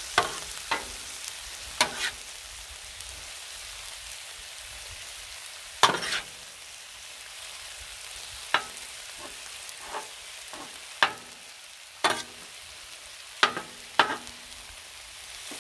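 Ground meat and chopped vegetables sizzling steadily on a Blackstone steel griddle plate. About a dozen sharp clacks and scrapes come at uneven intervals as a metal spatula chops and pushes the meat on the steel.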